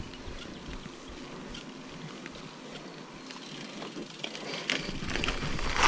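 Mountain bike rolling slowly over asphalt: tyre noise with light, irregular clicks and rattles from the bike, getting louder near the end.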